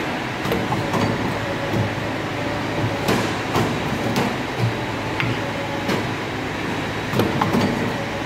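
CNC pipe bending machine running with a steady low hum, and metallic clanks and clicks every second or so as its clamps and bend die work a steel pipe through a bend.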